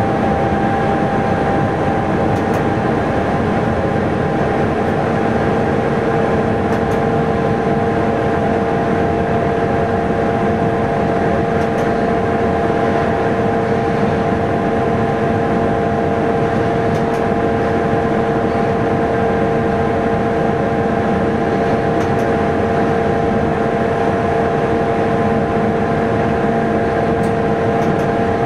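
Train running steadily on the line, heard from inside the driver's cab: a constant running noise with a steady hum and faint ticks every few seconds.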